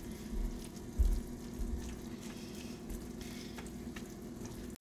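Ground meat with diced onions and bell peppers frying in a skillet: a light sizzle, with the spatulas scraping and turning the food in the pan, over a steady low hum.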